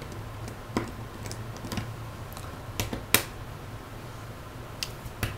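Scattered small, sharp clicks and taps of a precision Phillips screwdriver and tiny screws against a Samsung Galaxy S3's plastic midframe as the screws are worked out, over a steady low hum. The loudest click comes a little after halfway.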